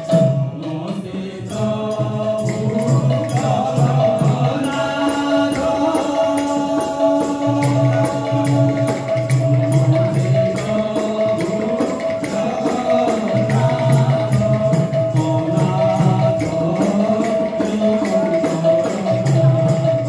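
Odia devotional kirtan music: group singing over a steady held note and driving, jingling percussion. The held note drops out right at the start and comes back about a second and a half in.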